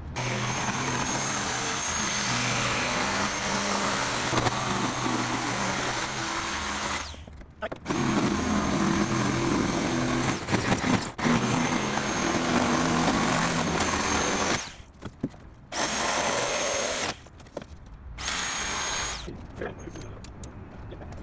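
Electric jigsaw cutting a thin plywood sheet, running in two long cuts with a short stop between, then two brief bursts.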